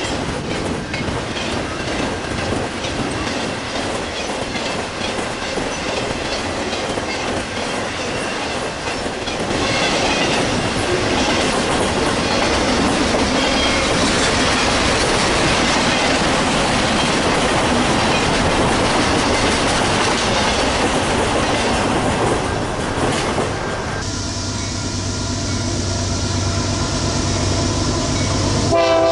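Intermodal freight train rolling past: steel wheels clicking quickly over rail joints under double-stack container cars and trailer flatcars, growing louder about ten seconds in. About 24 seconds in the sound cuts to a steadier low hum, and at the very end a train horn starts to sound.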